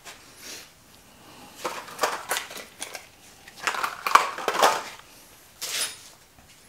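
Off-camera handling of tools and small metal parts in a small room: several short scratchy, clinking bursts, the loudest about four seconds in.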